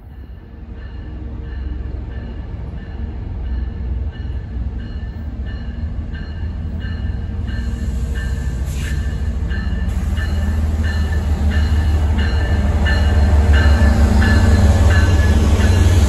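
MBTA HSP46 diesel-electric locomotive approaching and drawing alongside, its heavy engine rumble growing steadily louder, with a ringing repeating about twice a second, typical of a locomotive bell sounded on the way into a station.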